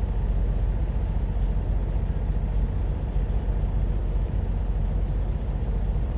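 Steady low rumble of an idling truck engine, heard from inside the cab.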